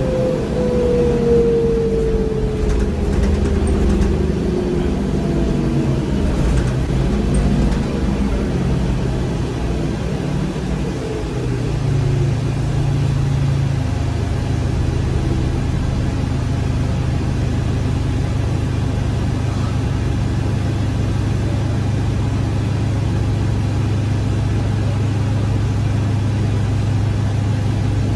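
Cabin sound of a New Flyer DE60LFR diesel-electric hybrid articulated bus, its Cummins ISL six-cylinder diesel and Allison EP50 hybrid drive running. A whine falls in pitch over the first few seconds as the bus slows. About twelve seconds in, the drivetrain settles into a steady low hum.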